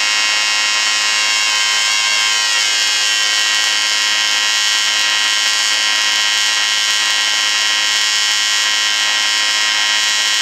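AC TIG welding arc on aluminum from an Everlast PowerTIG 255EXT set to soft square wave, 125 amps and 110 Hz AC frequency, making a steady buzz.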